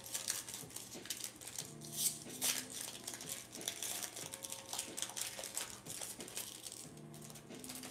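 Foil wrapper of a 2023 Bowman Platinum baseball card pack being torn open and crinkled by hand: a run of sharp crackles, loudest about two seconds in.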